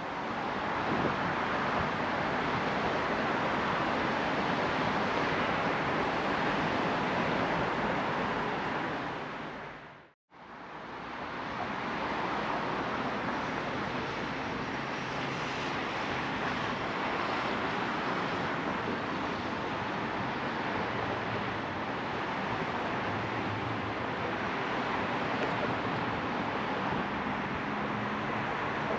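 Steady rushing outdoor ambient noise with no clear pitch. It drops out for a moment about ten seconds in, then carries on.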